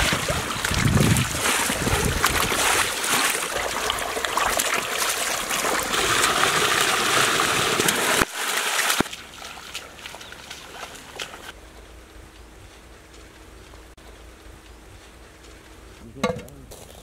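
Water gushing from a pipe into a metal pot and splashing over raw whole chickens being washed in it. The rush of water cuts off abruptly about eight seconds in, leaving quiet background.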